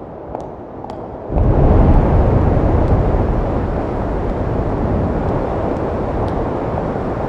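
High-heel footsteps clicking on a concrete floor, about two steps a second. About a second in, a loud, steady rushing rumble cuts in abruptly and drowns them out.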